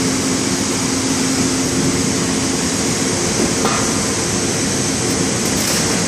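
Steady machinery hum with a low, even drone and a rush of air-like noise, with a faint short knock about three and a half seconds in.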